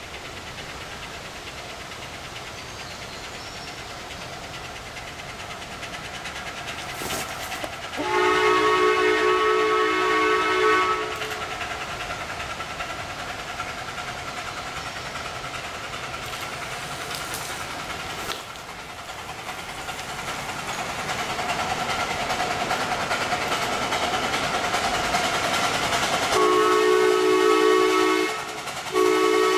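12-inch gauge live steam locomotive drawing closer, its running noise growing louder, and blowing its steam whistle as a chord of several notes: one blast about three seconds long a third of the way in, then two more close together near the end.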